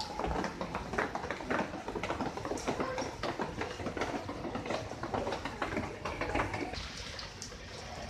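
Irregular tapping and knocking, several a second, over a low rumble, thinning out near the end.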